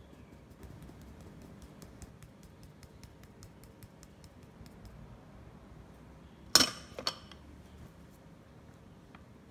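Metal mesh sieve sifting flour into a glass mixing bowl: a run of light, rapid ticks from tapping the sieve, then two sharp clinks about half a second apart as it knocks against the glass bowl.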